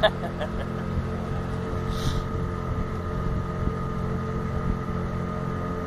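Small motorboat's engine running at a steady speed, a constant hum, with a brief hiss about two seconds in.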